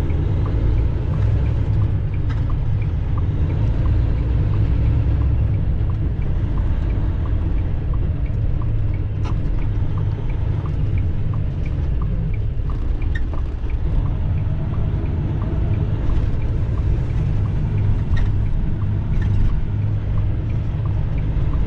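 Tractor-trailer cab interior at road speed: steady low engine and road rumble, with faint regular ticks over it.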